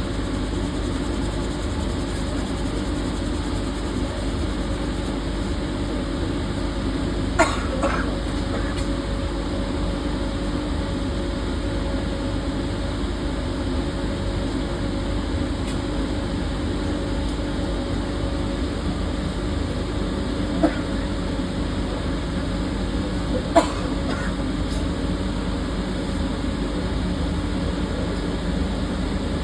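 A steady machine hum runs throughout, with a few sharp knocks: two close together about a quarter of the way in, then two more later on.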